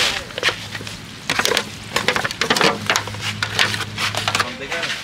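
Chunks of raw fish tipped from a foil tray into a hot pan of vegetables on a charcoal grill, landing in a dense run of crackles and clatters as they start to sizzle.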